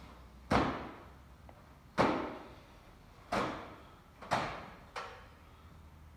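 Five sharp smacks made by the person exercising, irregularly spaced about one to one and a half seconds apart, the last one softer, each ringing briefly off the surrounding walls.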